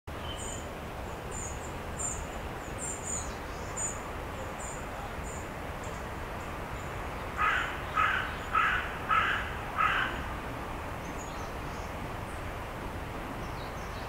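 Eastern crowned warbler singing a series of very high, short phrases, fading after about five seconds. Partway through, five loud calls in a row, about two a second, come from a larger bird and are louder than the song.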